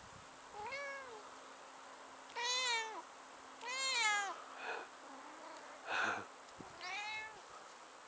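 Domestic cat meowing repeatedly, about six calls spread over eight seconds. Each call rises and then falls in pitch, and the loudest two come in the middle.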